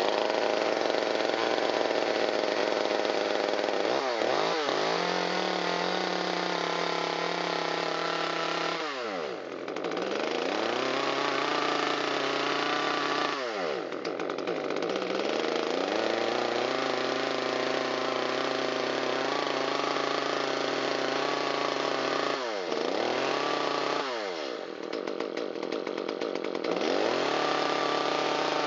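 Echo CS-355T two-stroke top-handle chainsaw running as the throttle is worked. Its engine speed dips and climbs back about five times. The saw idles fine but won't reach top speed: a fault under diagnosis.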